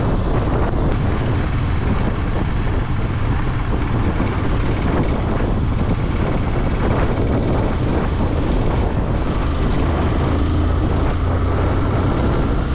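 Yamaha motorcycle engine running steadily while riding along, mixed with wind rushing over the camera's microphone.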